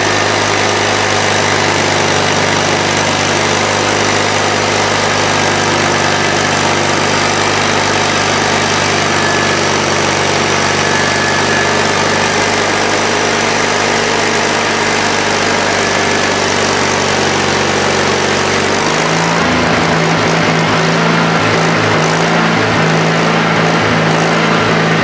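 Mighty Mite band sawmill's engine running steadily under load as the band blade rips through an Alaska yellow cedar cant, with a continuous sawing hiss. About 19 seconds in the engine note shifts higher and the hiss thins.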